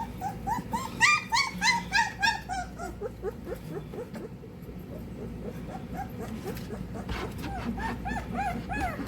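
Three-week-old XL American Bully puppy whimpering and yelping in a fast string of short, high cries, loudest in the first few seconds, with a softer run of cries near the end. It is protesting while being given an oral dewormer.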